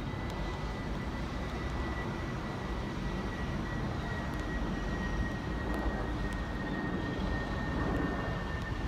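Distant train approaching along the line: a low rumble with a thin, steady high whine, growing slowly louder.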